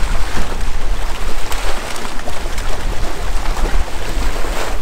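Wind buffeting the microphone with a heavy rumble, over small lake waves lapping and splashing against shoreline rocks.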